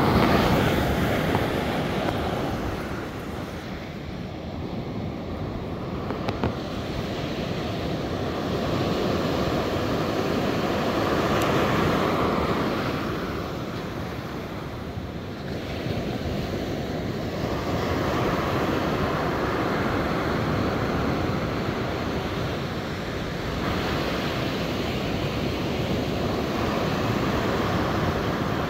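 Ocean surf breaking onto the beach, its wash swelling and easing every several seconds, with wind buffeting the microphone.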